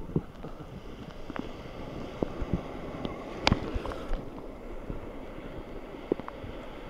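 Shallow sea water washing and splashing close to the microphone, with wind buffeting it. Scattered short sharp knocks run through it, the loudest about three and a half seconds in.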